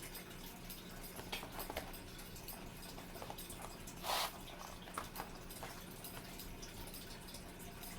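Scattered small taps and rustles of fast-food takeout packaging being handled, with one brief, louder crinkle about four seconds in. A faint steady hum runs underneath.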